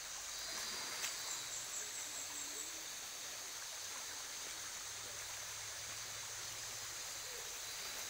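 Rainforest ambience: the steady rush of a small shallow river, with a steady high buzz above it and a short run of quick high chirps about a second in.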